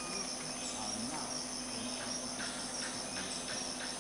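Rainforest insect chorus, a steady high-pitched shrilling of crickets and cicadas, with a low steady hum beneath it.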